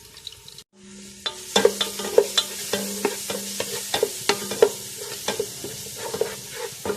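Ground ginger, garlic, green chilli and curry leaf paste sizzling in coconut oil in a frying pan while it is stirred, the utensil knocking against the pan about twice a second. The sound drops out briefly less than a second in, and the sizzle is louder after.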